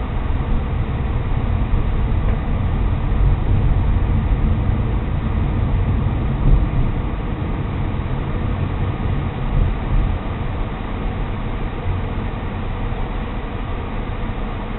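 Steady low rumble of a car driving, road and engine noise picked up by a car-mounted recorder, with a couple of brief louder bumps in the middle.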